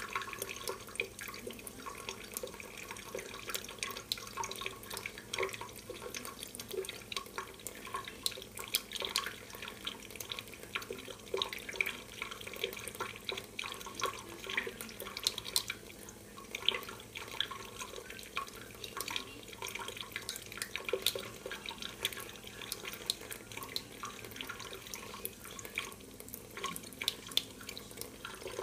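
Thin stream of water from a kitchen faucet running into a stainless steel sink, a steady trickle with many small irregular splashes and drips.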